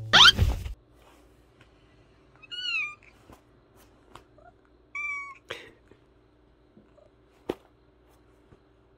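Domestic cat meowing twice, two short high meows with a bending pitch about two and a half seconds apart, with a few light clicks. Right at the start, the tail of background music ends in a brief rising swish.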